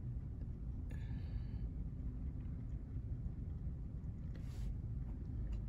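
Quiet room tone: a steady low rumble, with a faint brief higher sound about a second in.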